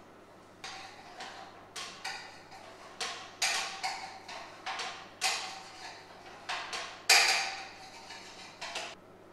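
Chef's knife chopping on a glass chopping board: a run of sharp, irregular clacks, each with a short glassy ring, the loudest near the end.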